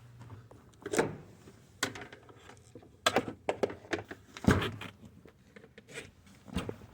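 A series of irregular knocks and thumps, with a low thud about four and a half seconds in.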